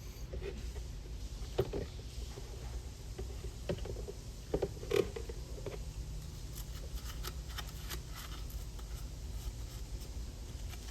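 A few light knocks and clatters of objects being handled, the loudest about two seconds in and around five seconds in, over a steady low hum.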